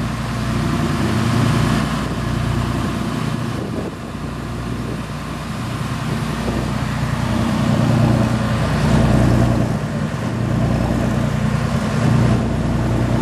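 Motorboat engine running steadily under way, a low drone under the rushing of wind and churning wake water.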